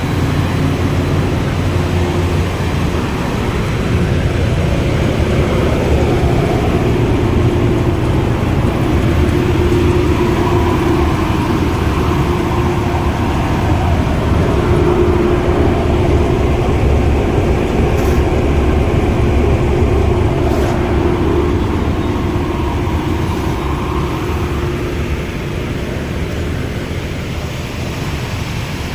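Industrial sawdust rotary dryer line running: a loud, steady machine rumble with a faint hum that wavers slightly in pitch.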